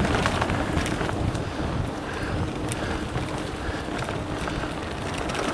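Full-suspension mountain bike rolling along a dirt forest trail: wind buffeting the microphone over the tyre noise, with scattered rattles and knocks from the bike going over bumps.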